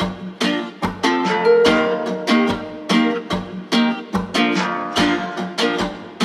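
Background music: a plucked-string instrument strummed in a steady, upbeat rhythm, about three strums a second.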